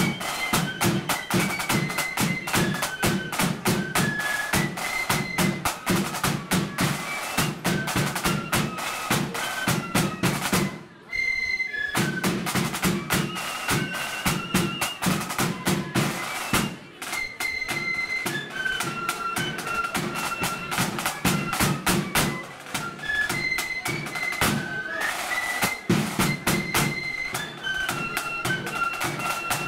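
Blood-and-thunder flute band playing a march: flutes carry the tune over rapid snare drumming and a bass drum. The drums drop out for a moment about eleven seconds in.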